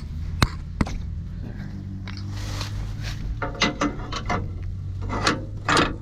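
Metal clicks and clanks from the combine header's latches and couplings being worked loose during unhooking: two sharp knocks about half a second in and just before a second in, then a cluster of clanks in the second half. A steady low engine hum runs underneath.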